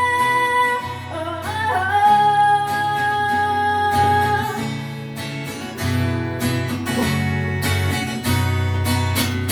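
Live acoustic pop song: a singer holds long notes over strummed acoustic guitar chords. About halfway through the voice drops out and the guitar strums on alone.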